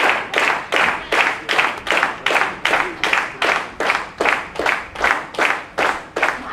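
Audience clapping together in a steady rhythm, about two and a half claps a second, the claps ringing a little in the hall.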